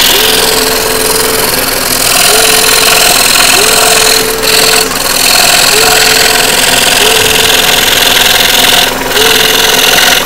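Scroll Pro scroll saw running steadily as its blade cuts fretwork in a thin wooden blank, a continuous buzzing hiss that dips briefly twice.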